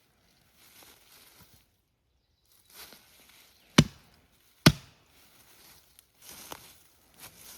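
Two sharp impacts, like chops or knocks, about a second apart near the middle, amid softer scattered rustling.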